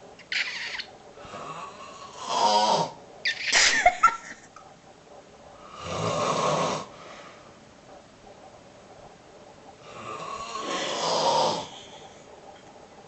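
A sleeping man snoring: a cluster of short, sharp snores in the first four seconds, then two longer drawn-out snores about six and eleven seconds in, with quieter breathing between.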